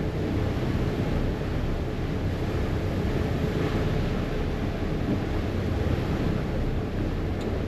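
A harbour ferry under way: its engine running with a steady low drone, mixed with water rushing past the hull and wind buffeting the microphone.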